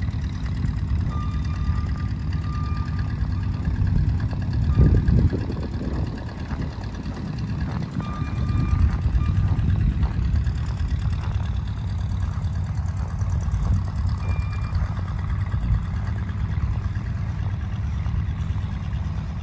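A vehicle engine running with a low rumble while a backup alarm beeps on and off in short runs.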